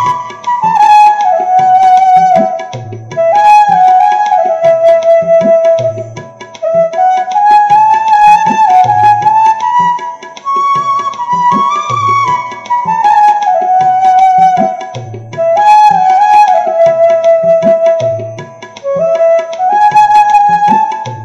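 Bamboo bansuri flute playing a Bengali folk melody in phrases that climb and then step down, over drum accompaniment keeping a steady beat.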